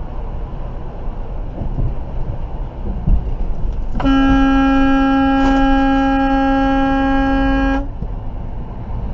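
Steady drone of a truck's engine and tyres on the highway, then about four seconds in a vehicle horn sounds one long, steady blast of nearly four seconds, a warning at a car braking just ahead.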